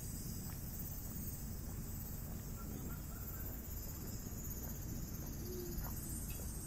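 Steady outdoor ambience: an even high-pitched hiss over a low, wind-like rumble, with no distinct events.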